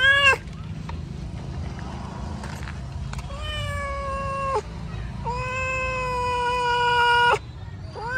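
Tabby cat meowing in long, drawn-out cries that hold a steady pitch. There is a short one at the start, then two longer ones, the last lasting about two seconds, and another beginning at the end.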